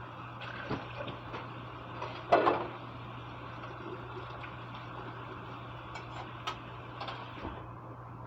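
Household handling noises: scattered light clicks and knocks, with one louder clatter about two seconds in, over a steady low hum.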